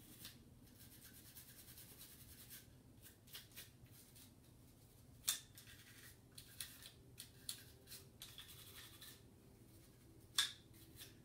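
A cleaning brush scrubbing lightly over and inside the polymer frame of a Smith & Wesson Shield 9mm pistol, in faint, irregular scratchy strokes, with two sharper clicks about halfway and near the end.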